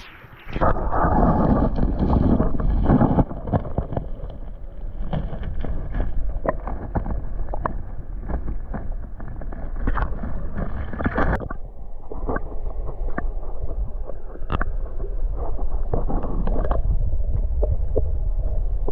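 Wind rumbling on the microphone, with many scattered knocks and scuffs.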